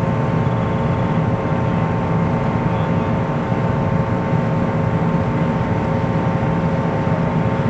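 Distant Delta II rocket in powered flight: a steady low rumble with a faint hum over it.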